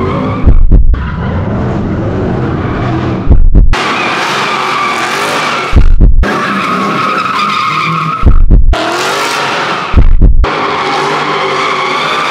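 Drift cars sliding with tyres squealing and engines revving, in short clips. Each clip is cut off by a loud, deep boom lasting under half a second, five times in all.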